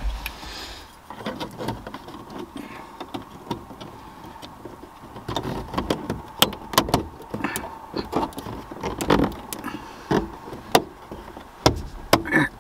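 Plastic lens of a 2013 Ford F-150's overhead console light clicking and knocking as it is pushed and pressed back into its housing, popping back out instead of clipping in. The clicks come thickest in the second half, over a faint steady tone.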